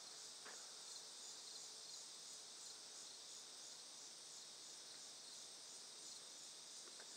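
Faint, steady high-pitched chirring of insects, with a light even pulse.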